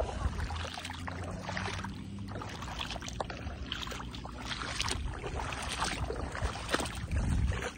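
Footsteps squelching through soft wet mud, about one step a second, over a low steady rumble.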